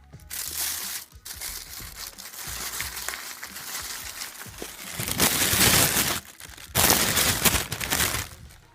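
Crumpling and crinkling of something being handled and crushed, loudest in two stretches about five and seven seconds in.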